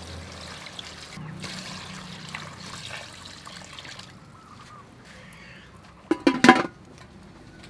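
Water poured from a plastic jug into an aluminium stew pot, trickling and splashing for about four seconds. About six seconds in, the domed aluminium lid is set on the pot with a brief ringing metallic clatter, the loudest sound.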